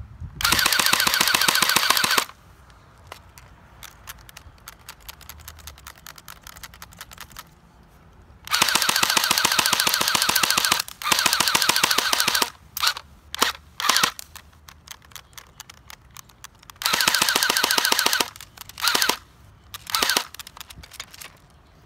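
Battery-powered HK MP7 airsoft replica firing full-auto bursts, a rapid even rattle. One burst of about two seconds comes early, and after a pause of about six seconds there is a run of bursts up to two and a half seconds long. Several short bursts follow near the end.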